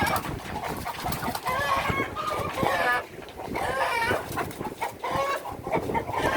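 Chickens squawking and clucking, a string of loud calls one after another, as the flock is disturbed and caught in the coop.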